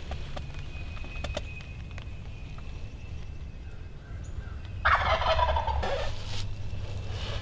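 An Eastern wild turkey gobbler gobbling once about five seconds in: a loud rattling call lasting about a second.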